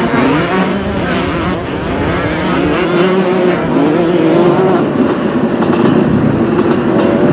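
Several motocross motorcycle engines revving together, their overlapping pitches rising and falling.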